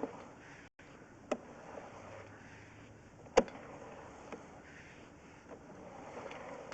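Faint steady hiss with a few sharp clicks, the loudest about three and a half seconds in, from a sewer inspection camera and its push cable being pulled back through old Orangeburg sewer pipe.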